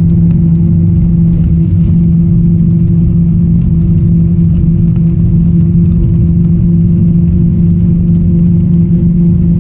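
Steady low drone of a moving bus, engine hum and road rumble, heard from inside the bus.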